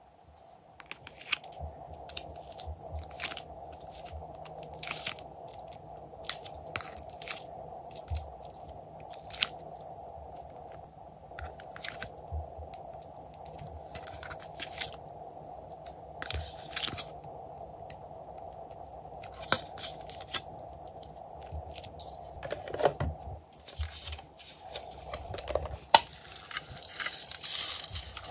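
Hands working a plastic toy palette, prying coloured pieces out of its compartments and dropping them onto slime: irregular sharp plastic clicks and taps, with a louder stretch of scraping near the end.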